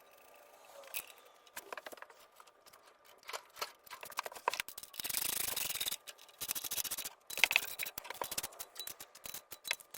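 Scattered metallic clicks, knocks and scraping from hand work on metal parts as the bell housing is fitted to the Volkswagen engine, with a rasp lasting about a second about halfway through.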